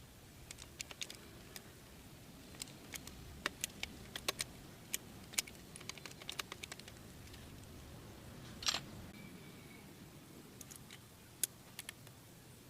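A scattered series of sharp, light clicks and clinks, like small hard objects being handled, with one slightly longer scrape about nine seconds in.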